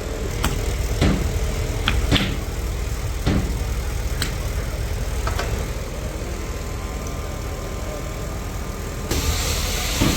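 Several sharp knocks and clicks over a steady low rumble, then an even hiss starts about nine seconds in.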